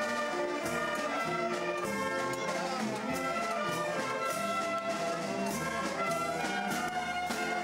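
Marching band of brass and drums playing a march, the brass holding a sustained melody over regular drum beats.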